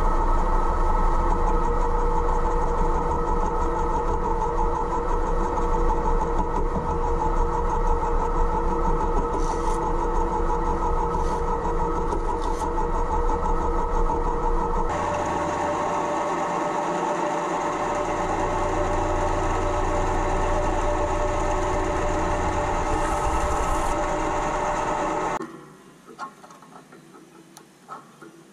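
Home-built mini lathe running, its motor and gear train giving a steady mechanical hum with several held tones that shift to a different pitch about halfway through. Near the end the running sound gives way to a quiet background with a few light clicks.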